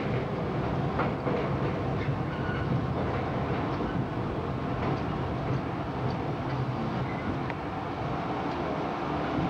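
An R32 New York City subway train running along the track from the platform into the tunnel: a steady rumble of steel wheels on rail with scattered sharp clicks over rail joints, heard from inside the lead car.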